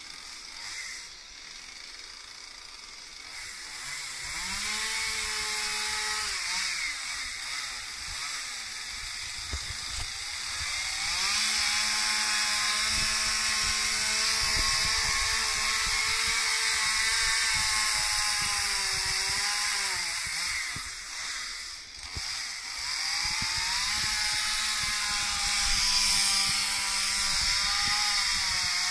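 Stihl MS 181 two-stroke chainsaw with a carving bar, cutting into oak. It runs low at first, revs up about four seconds in, and holds high revs through long cuts, easing off briefly between them.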